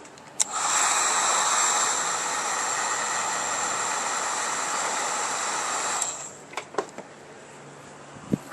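Heat gun switched on with a click and running with a steady blower hiss and a high whine for about five and a half seconds, then switched off abruptly. It is softening a stiff air-horn hose so it will slide onto its fitting. A few light clicks follow.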